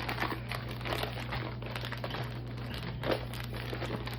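A taped-down packaging bag crinkling and rustling as it is pulled open and handled: dense, irregular crackling.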